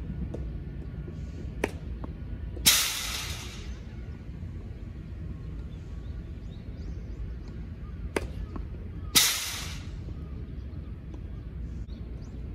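Tennis ball struck by a racket at the far end of the court, twice, each a short sharp pop. About a second after each hit a much louder rushing hiss starts abruptly and fades over about a second as the ball arrives at the near end. Faint bird chirps run underneath.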